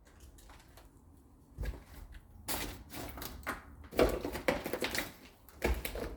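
Irregular knocks and bangs of hard objects striking, starting about a second and a half in and growing louder, the loudest about four seconds in.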